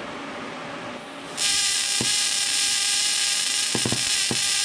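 Everlast 255EXT TIG welder's high-frequency arc start sparking from the tungsten across a gap of about an inch and a half to the metal. It is a loud, steady buzzing hiss that comes on about a second and a half in, with sharp snaps now and then as the arc jumps. Running the high-frequency start across so wide a gap strains the machine's internal spark gap and can damage it.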